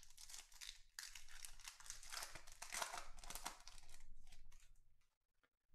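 Foil wrapper of a Topps Chrome Black baseball card pack being torn open and crinkled by hand, a dense crackle that stops about five seconds in.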